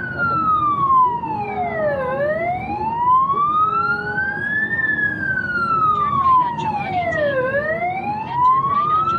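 Fire-rescue vehicle's siren on a slow wail, heard from inside the cab: the pitch falls for about two seconds, rises to a peak near the middle, falls again and starts rising near the end, over the low rumble of the moving vehicle.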